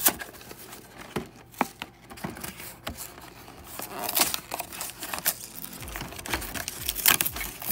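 A cardboard trading-card box being torn open by hand, with a loud click at the start, then tearing cardboard and crinkling clear plastic film. There are many sharp crackles and clicks, busiest in the middle and near the end.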